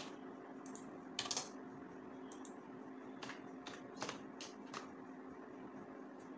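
Computer keyboard keys tapped in short, irregular runs of keystrokes while text is typed into a web form, over a faint steady hum.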